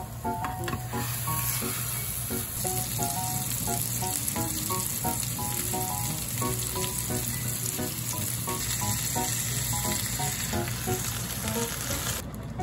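Hamburg steak patties frying in a nonstick frying pan, a steady even sizzle.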